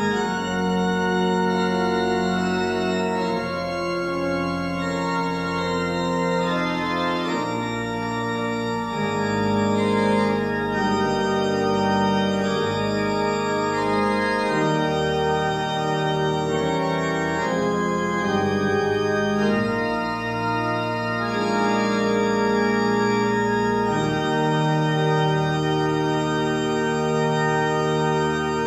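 Church organ playing slow, sustained chords that change every couple of seconds.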